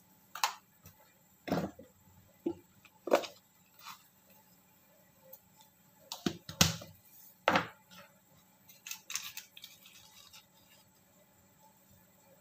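Light clicks and taps from handling seasoning containers and a small plastic measuring spoon while salt, seasoning powder and pepper are added to a pot of soup: about a dozen short, sharp sounds spread unevenly, with quiet gaps between.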